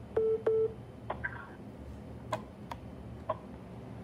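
An electronic device beeps twice, two short beeps of the same pitch in quick succession. After that come a few scattered light clicks and taps.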